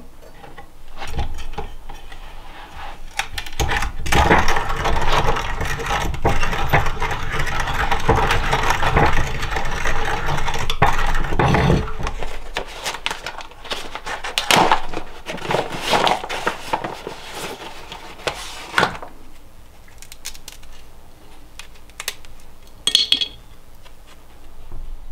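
Kitchen things being handled on a wooden counter: a long, dense stretch of rustling and rattling, then separate clicks and knocks of utensils and containers.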